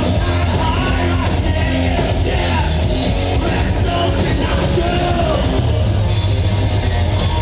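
Live heavy metal band playing loud and steady: electric guitars, bass and drum kit, with a singer's voice over them.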